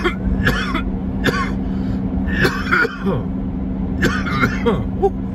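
A person coughing and clearing their throat in several short bursts, over the steady low hum of a car running.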